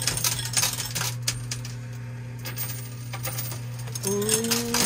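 Quarters clinking and dropping on a coin pusher machine's metal playfield, many quick irregular clinks over a steady low hum.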